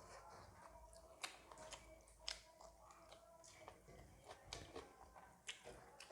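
Quiet mouth-eating sounds: chewing and lip smacks, with several sharp clicks spread through.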